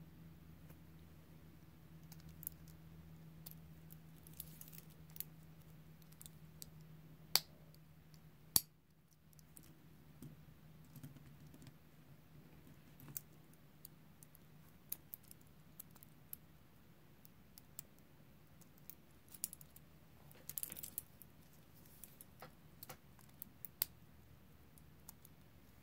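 Stainless steel dive-watch bracelet and clasp clicking and clinking as the watch is taken off the wrist and handled: scattered light clicks, the two sharpest a little past seven and eight seconds in, and a quick run of them about twenty seconds in.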